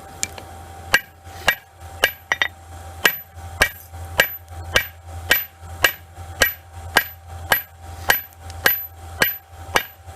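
Hammer blows on a hot railroad spike over an anvil as it is forged into a knife blank. The strikes come in a steady rhythm of just under two a second, each with a short metallic ring, starting about a second in, over a steady low hum.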